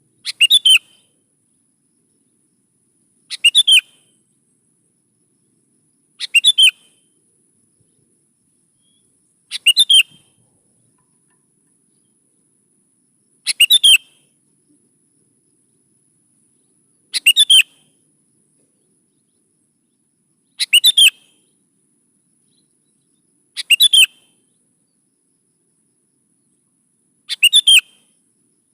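Sooty-headed bulbul (kutilang) singing: a short phrase of a few quick notes, repeated nine times at about three-and-a-half-second intervals.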